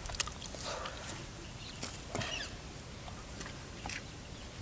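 Faint scattered clicks and rustling of close handling and movement, with a short high chirp about two seconds in.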